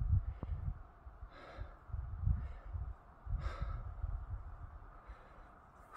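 A hiker breathing heavily, a soft breath every second or so, over wind gusting on the microphone, the gusts strongest at the start.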